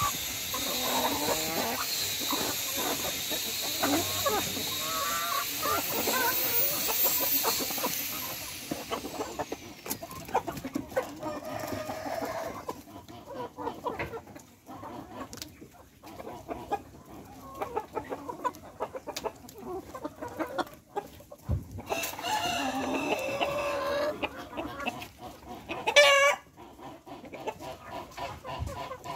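A flock of domestic chickens clucking as they peck and feed on the ground, with short calls overlapping throughout. One louder, sharper squawk comes near the end.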